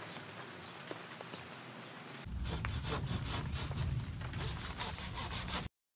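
Mulberry branches and leaves rustling and scraping as a branch is cut with a hand blade, a busy run of quick irregular strokes. It comes in about two seconds in over quieter background noise and cuts off abruptly near the end.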